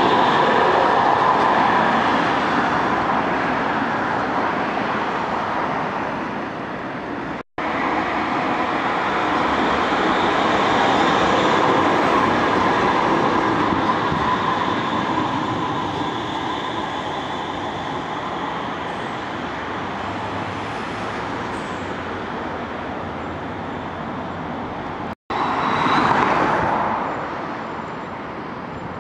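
A Manchester Metrolink M5000 light-rail tram running along the track close by, a continuous rumble of motors and wheels. The sound drops out briefly twice, and there is a short swell near the end.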